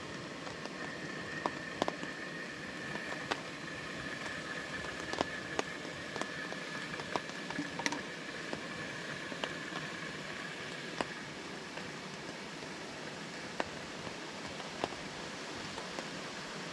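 Steady rain falling on a tarp shelter: a constant hiss with scattered louder drops ticking sharply on the fabric.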